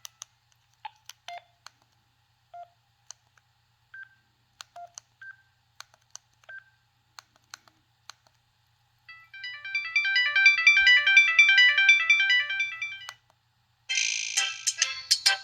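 Kyocera KX9B cell phone's preloaded ringtones playing through its small speaker. First come sparse short blips and clicks for several seconds, then a busy, many-note electronic melody from about nine to thirteen seconds in, and another ringtone starts near the end.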